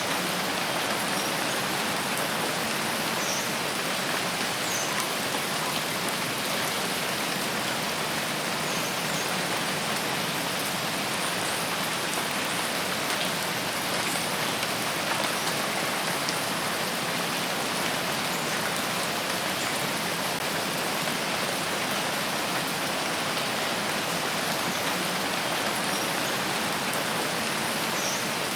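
Steady rain falling in a rain forest: an even, unbroken hiss of rain.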